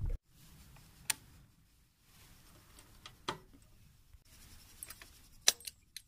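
Metal clicks of ignition keys being turned in motorcycle ignition switches: a few sharp clicks about two seconds apart, the loudest near the end, over a faint background.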